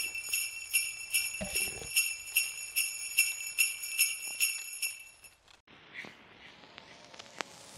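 Sleigh bells jingling on a steady beat, about two and a half shakes a second, stopping abruptly a little after five seconds in; a few faint clicks follow.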